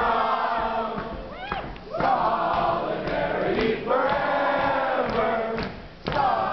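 A large group of people singing together in unison, holding long notes, with a short break near the end before the voices come in again.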